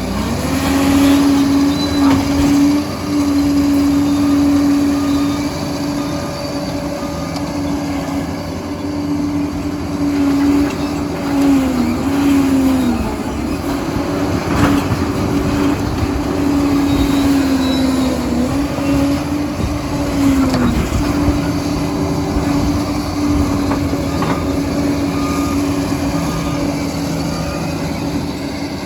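Liebherr PR 746 crawler dozer's diesel engine running steadily at working speed. Its pitch sags briefly twice, in the middle and about two-thirds through, with scattered knocks over it.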